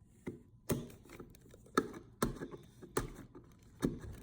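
A series of about six irregular knocks and clicks of hard objects being handled.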